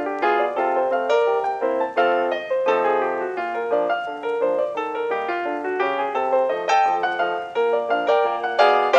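Background piano music, a quick run of plucked-sounding notes played at a steady pace.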